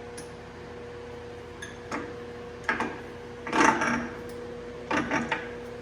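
Metal clunks and clicks from shifting the Clausing 5914 lathe's back-gear mechanism to engage the back gears, a few separate knocks with the loudest about three and a half seconds in. Under them is a steady electrical hum from the running rotary phase converter.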